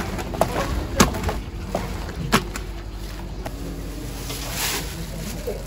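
Rubber-gloved hands kneading a wet mix of chopped vegetables in a plastic tub: squelches and a few sharp slaps, the clearest about a second in and near two and a half seconds, over a steady low hum.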